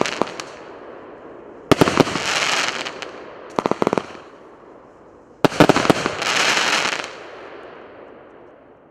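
'Avatar' firework battery (cake) going off in volleys: a burst dying away, then three clusters of sharp bangs, about a second and a half to two seconds apart, two of them followed by about a second of dense crackling that fades out near the end.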